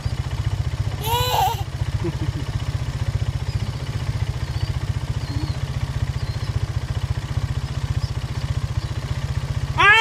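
Small engine idling steadily, a low rumble with an even, fast pulse. A brief high call comes about a second in, and there are a few faint high peeps later.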